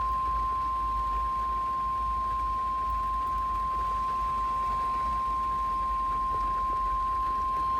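NOAA Weather Radio 1050 Hz warning alarm tone: one steady, unwavering pure tone over faint radio hiss and a low hum, the signal that a warning message follows.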